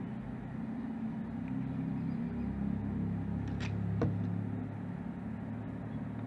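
LM386 amplifier's speaker giving off a steady low hum and buzz while no music is playing: the idle noise that the amplifier picks up. Two faint clicks come about three and a half and four seconds in.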